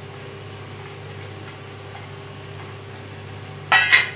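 A steel spoon lightly tapping and scraping chopped garlic out of a small stainless steel bowl, over a steady low hum. Near the end comes one short, loud, ringing metallic clink as the emptied steel bowl is set down.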